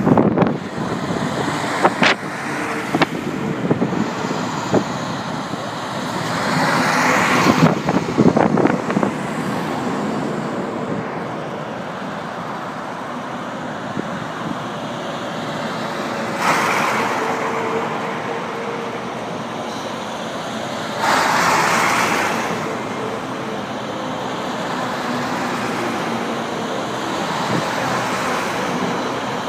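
Road traffic from a passing convoy of six-wheeled military trucks mixed with cars: steady engine and tyre noise that swells three times as vehicles pass close. A few sharp clicks come about two to three seconds in.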